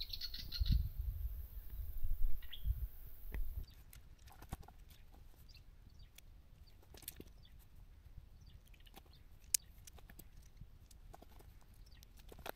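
A bird's short chirping trill over a low rumble on the microphone. After a cut, faint scattered rustles and clicks of a lightweight two-person hiking tent, a Big Agnes Copper Spur, as its fabric and poles are unpacked and pitched.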